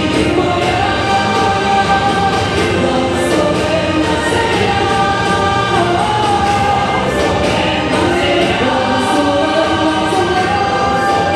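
A song: singing in harmony over an instrumental backing, with long held notes.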